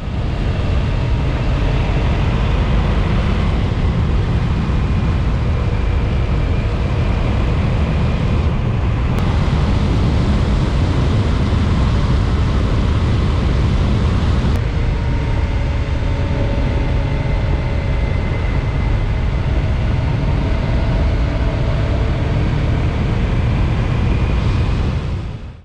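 Honda ST1300 Pan European motorcycle's V4 engine running at road speed, its note slowly rising and falling, under heavy low wind rumble on the microphone.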